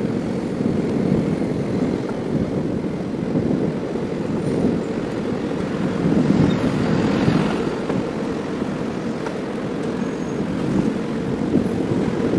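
Wind buffeting the microphone of a handlebar-mounted camera on a moving bicycle, a steady low rush mixed with city car traffic. A passing vehicle swells briefly a little past halfway.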